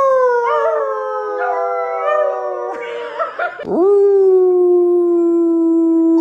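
A dog howling in two long, drawn-out howls. The first slides slowly down in pitch, with a few wavering turns, and breaks off about three seconds in. The second starts about a second later and is held at a steady, lower pitch.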